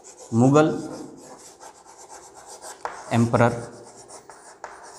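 Chalk scratching on a blackboard as words are written by hand, a fine rapid scraping throughout. A man's voice sounds briefly twice, about half a second in and again about three seconds in.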